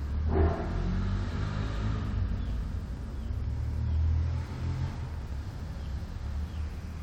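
A sleeping person snoring: a low rattling rumble that swells about halfway through and then eases, with a brief sharper snort just after the start.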